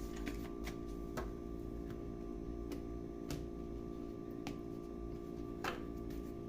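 About eight soft, irregular clicks and taps, the clearest near the end, over a quiet, steady background music drone.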